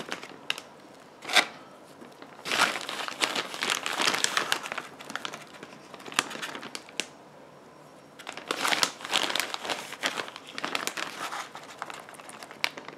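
Plastic zipper-lock bag of flour breading crinkling and rustling in irregular bursts as a gloved hand rummages in it and shakes breaded chicken wings.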